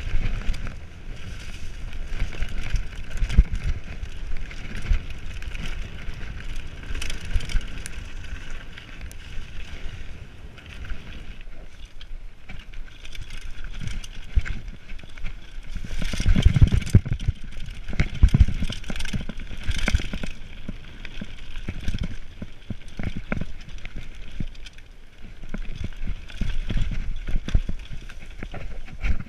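Mountain bike riding fast down a dirt singletrack: tyres rolling over the trail, with constant rattling and sharp knocks as the bike hits bumps, and wind rumbling on the microphone. The knocks come heaviest about halfway through.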